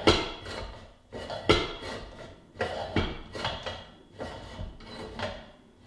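Homemade welded steel grip machine loaded with weight plates being lifted and lowered by its handle: metal scraping and rubbing as the sliding part runs along the bare steel center post, with sharp metal knocks, the loudest right at the start and about a second and a half in.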